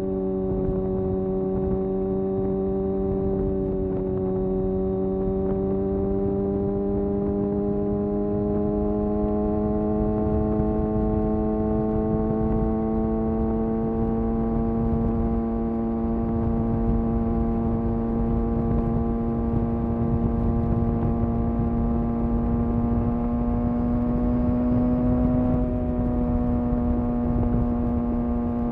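Kawasaki ZX-6R's inline-four engine running at a steady cruising throttle, its pitch rising slowly over about twenty seconds and then dipping slightly a few seconds before the end, over a low rumble.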